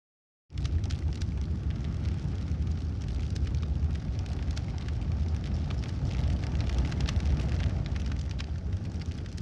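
Campfire burning: a steady low rumble of flames with frequent sharp crackles and pops, starting abruptly about half a second in.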